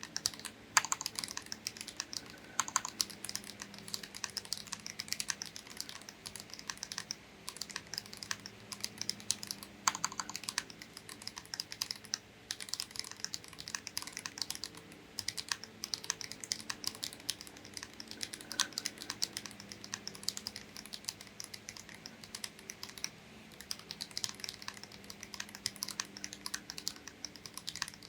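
Typing on a Feker Alice80 mechanical keyboard with Gateron Beer tactile switches and GMK ABS keycaps: a steady run of quick key clacks at typing speed, with a couple of brief pauses.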